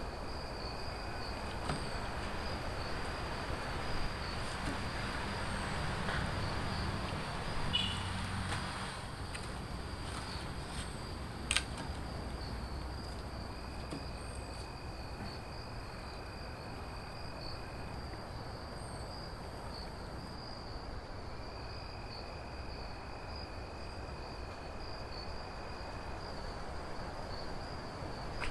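Steady high-pitched insect trill over a continuous background hiss, with a few short clicks.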